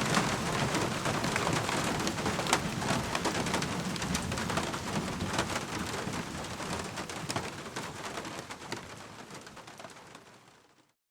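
Steady rain falling, with many small drips and splashes, fading out gradually over the last few seconds to silence.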